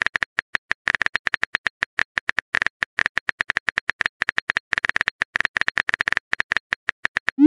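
Rapid on-screen keyboard tap clicks from a phone texting-story app, about ten a second, as a message is typed out. A short rising swoosh at the very end marks the message being sent.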